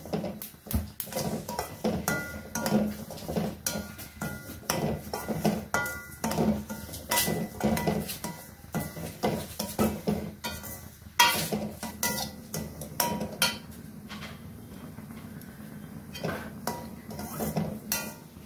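Steel spoon scraping and clinking against a stainless-steel pan while stirring broken wheat rava as it roasts in oil and ghee. The strokes come irregularly, the pan ringing briefly after some of them, with one sharper clink about eleven seconds in and a couple of quieter seconds near the end. A steady low hum sits underneath.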